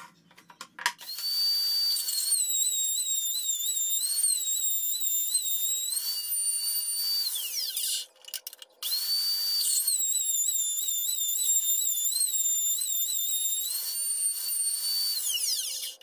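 Router in a router table running at a high whine, its pitch sagging and wavering as the bit cuts slots into wood strips fed along the fence. It cuts off briefly about halfway, then runs on and winds down near the end.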